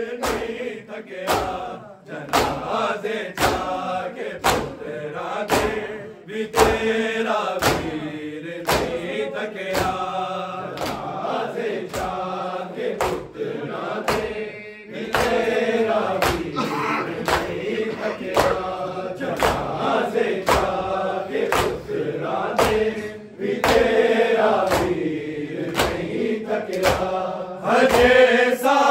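Men chanting a Punjabi noha, a mourning lament, together, over a steady rhythm of open-handed chest-beating (matam) slaps at about one and a half strikes a second.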